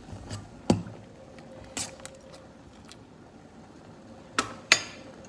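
Metal ladle knocking against a stainless steel cooking pot: a sharp knock under a second in, a lighter one a second later, and two sharp knocks close together near the end.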